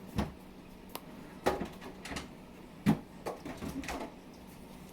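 Kitchen items being put away: three sharp knocks about a second and a half apart, with lighter clatter in between, like cupboard doors and containers being handled.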